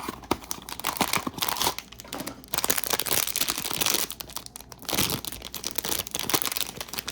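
Blind-box packaging for a mini figure being torn open by hand and crinkled, a dense run of crackling and tearing with louder stretches about two and a half seconds in and again near five seconds.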